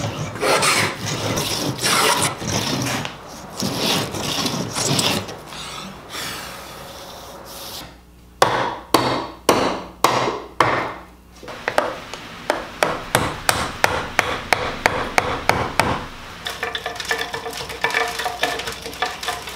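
Hand plane taking repeated rasping strokes across the tenons of a tabletop's breadboard tongue. A few seconds later a mallet strikes a chisel about half a dozen times, sharp knocks about half a second apart, chopping mortises. Then come quick rhythmic strokes and light clicking.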